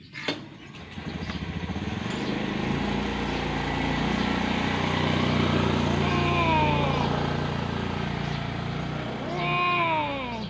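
Two cats in a standoff yowling: a long falling yowl about six seconds in and a louder one near the end. Under them runs the steady low hum of a motor vehicle engine, which swells through the middle.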